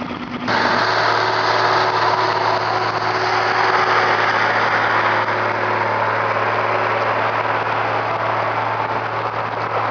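ATV engine running steadily with a constant low hum and a dense rushing noise over it. The sound changes abruptly about half a second in.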